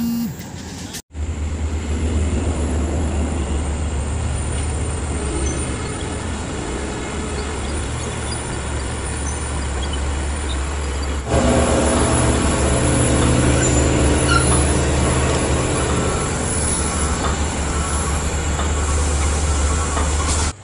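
Heavy earth-moving machinery such as a bulldozer running, with a steady low engine drone. About eleven seconds in the sound gets louder and a deeper engine hum with several steady tones joins it.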